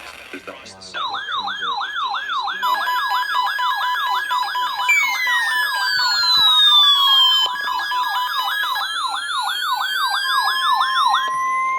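Electronic siren tones layered together: a fast yelp sweeping up and down about four times a second, steady alert tones, and a slower wail that falls and then rises. They start about a second in; the yelp stops just before the end.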